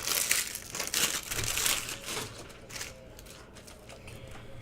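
Plastic trading-card pack wrappers crinkling and crumpling as they are handled. The sound is dense for about the first two seconds, then thins to scattered light rustles and clicks.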